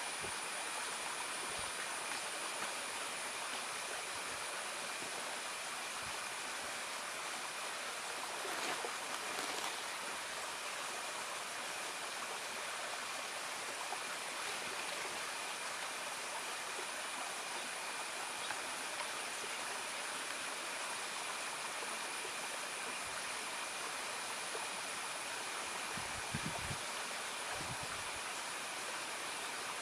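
Steady, even rushing noise like running water, with faint steady high tones held throughout. A few brief low thumps come near the end.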